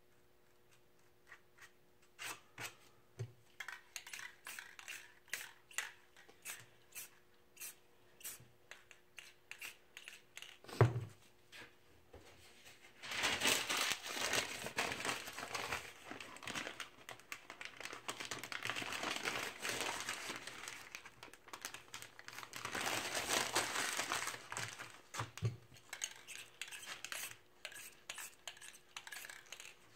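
Aerosol spray-paint can hissing in two long bursts, one about 13 seconds in and another around 22 seconds. Before them comes a run of sharp clicks with a single louder knock.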